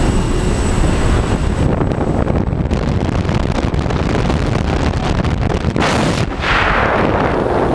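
Loud, steady rumble of a small jump plane's engine and slipstream through the open door, buffeting the helmet camera's microphone. About six seconds in a sharp blast hits, then a louder rush of wind as the skydivers lean out of the door into the airflow.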